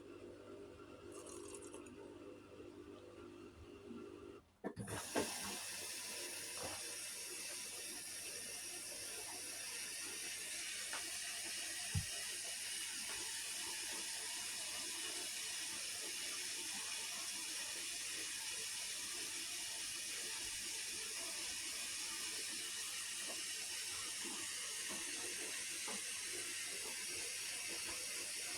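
Hotpoint Aquarius washing machine taking in water: a low hum, then a click about five seconds in as the water starts to rush in with a steady hiss, with a single knock a few seconds later.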